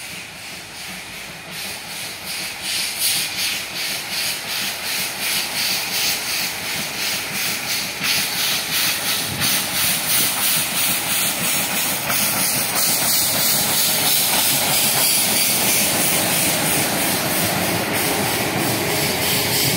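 Taiwan Railway DT668, a DT650-class 2-8-2 steam locomotive, chuffing and hissing steam as it pulls away with its train, an even rhythm of exhaust beats growing louder as it draws near.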